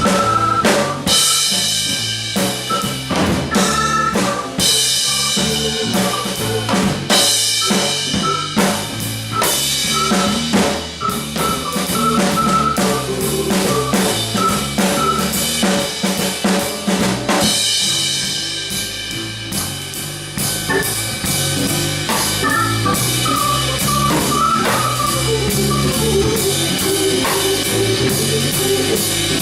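Live instrumental jam led by a drum kit, with snare, bass drum and cymbal hits over a bass guitar line, and keyboard notes joining in. From about twenty seconds in the drumming thins and a keyboard melody comes forward.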